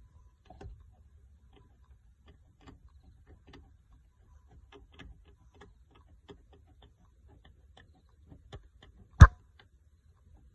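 Scattered light clicks and taps, with one sharp, much louder knock about nine seconds in.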